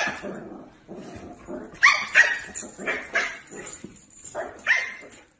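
Dog barking and yipping: a string of short, high-pitched calls, loudest about two seconds in.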